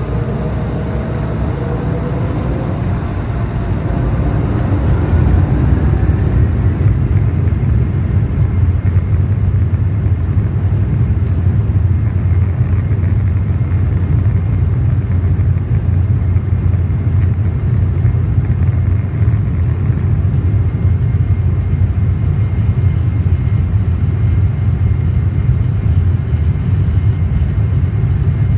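Embraer 190's turbofan engines heard inside the cabin, spooling up to takeoff thrust: a rising whine over the first few seconds, then a steady loud roar with deep rumble as the jet accelerates down the runway.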